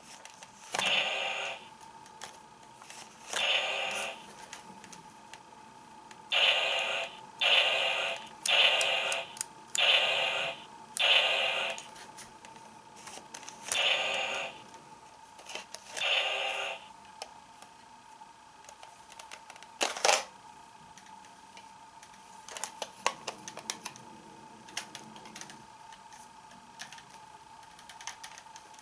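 Kamen Rider Ryuki Legend Series toy belt playing a run of about ten short electronic sound effects through its small speaker, one after another for the first seventeen seconds or so. After that come a sharp click and a scatter of small plastic clicks as the cards and card deck are handled, over a faint steady high hum.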